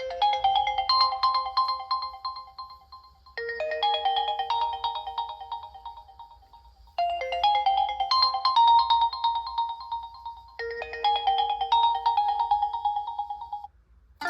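A Realme C55 smartphone ringtone playing: a short melodic phrase that repeats four times, each time about three and a half seconds long, and stops shortly before the end.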